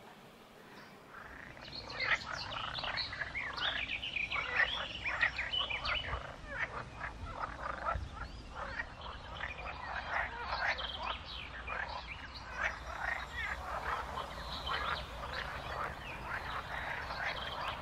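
A dense chatter of many short, overlapping animal calls from the pond. It starts about two seconds in and then keeps on unbroken.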